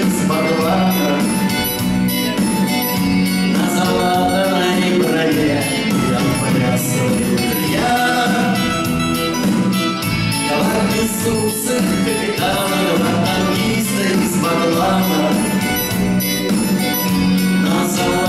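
Live band playing a song on acoustic guitar, electric guitar, bass guitar and keyboard, over a steady beat.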